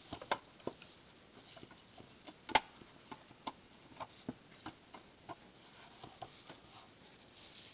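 Faint, irregular clicks and taps of the wiper blade and the plastic housing of a Lexmark Optra E-series drum cartridge being handled and fitted, with one sharper knock about two and a half seconds in.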